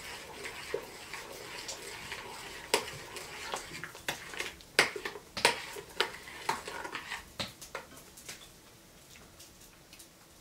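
A metal spoon stirring a thin liquid in a stainless steel pot, scraping and clinking sharply against the pot's side and bottom. The clinks come thickest in the middle and die away about eight seconds in.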